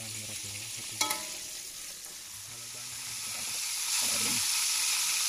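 Tomatoes sizzling and frying in hot oil in a wok, with a sharp clink about a second in as the slotted spoon knocks the wok. The sizzle grows louder about four seconds in.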